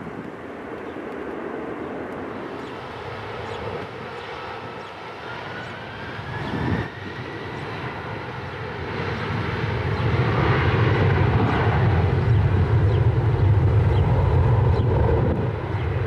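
Jet airliner engines on the runway. First a twin-jet's engines with a thin whine rising in pitch. Then, after a sudden break, a Boeing 747's four engines rumble at high power, building over a few seconds and then holding loud.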